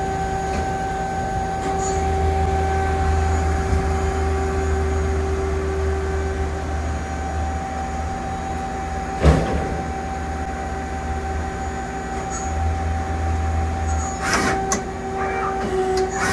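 Mazak Quick Turn Nexus 250-II CNC lathe running with its spindle turning, a steady machine hum with a constant whine. There is a single sharp knock about nine seconds in, and a few clicks and clatter near the end.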